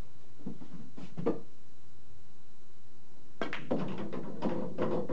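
A pool shot: a sharp click of the cue striking the cue ball about three and a half seconds in, followed by a quick run of clacks and knocks as the balls collide and hit the cushions. Two lighter knocks come about half a second and a second in.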